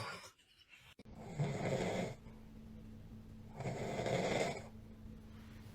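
A man snoring loudly: two long snores, each about a second, roughly two seconds apart.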